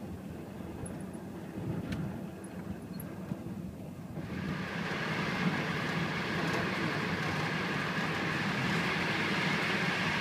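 Running noise inside a moving sleeper-train carriage: a steady rumble with a rushing hiss that gets clearly louder about four seconds in.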